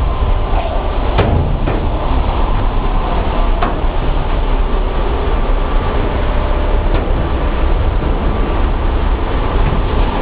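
Steady, loud rumble of running paper-mill machinery, with a few faint clicks about a second, three and a half and seven seconds in.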